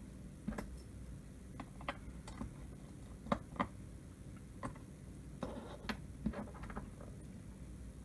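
Scattered light clicks and taps, about a dozen, irregularly spaced, as small phone parts and tools are handled during an iPhone repair.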